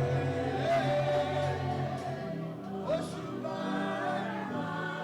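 Gospel worship music: a congregation singing together over a steady instrumental accompaniment.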